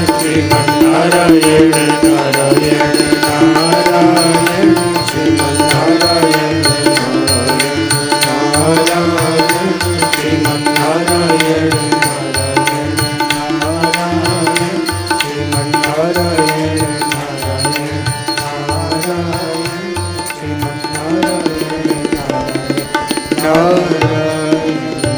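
Devotional kirtan music: a winding melody over a steady hand-drum beat, the music thinning out near the end.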